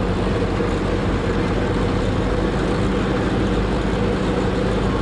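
Engine of an old yellow crawler bulldozer running steadily at an even speed.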